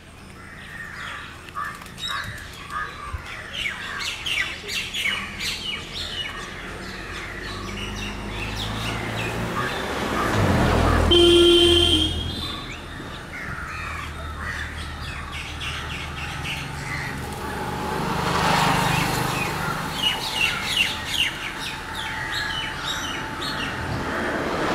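Birds chirping and calling repeatedly in short notes. A low rumble swells and fades twice, loudest about halfway through, where a brief held tone sounds.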